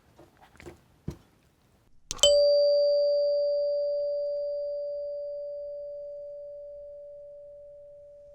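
Heath Zenith electric door chime's plunger striking one metal tone bar once, about two seconds in, after a few faint clicks. The single note rings on and fades slowly. The chime is run off a 9-volt battery and has a hollow resonator sitting over it.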